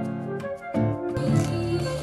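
Background music with a steady beat; about a second in, a hiss joins across the high range.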